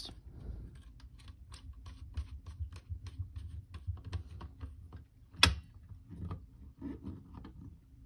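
Phillips screwdriver turning a terminal screw down on a wire at the back of a fire alarm pull station: a faint run of small clicks and scrapes, with one louder click about five and a half seconds in.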